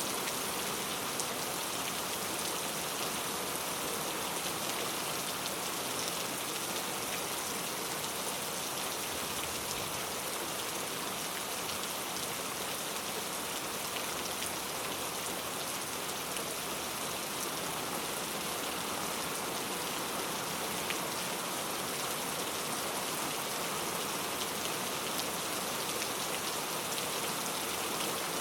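Heavy rain falling steadily, a dense even hiss with the patter of individual drops on a surface.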